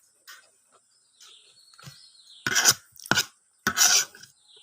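Close-up eating sounds: three loud, short crunches of someone chewing food, from about halfway through, with smaller mouth clicks between them. Insects chirr steadily and high-pitched in the background.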